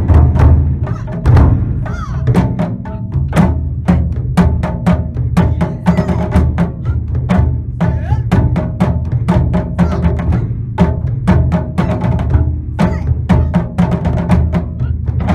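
Taiko ensemble drumming with sticks: deep booms from large barrel drums under a fast, steady run of sharp stick strikes.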